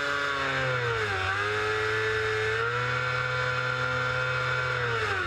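Mercedes Formula One car's V8 engine running at steady, raised revs while stationary in first gear with the clutch held, during a clutch bite-point finding procedure. The note dips about a second in, holds steady, then drops away just before the end.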